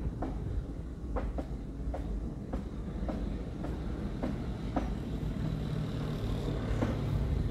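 Railway cars of a train rolling past over a low rumble, their wheels clacking over rail joints at roughly two clacks a second. A faint high whine comes in near the end.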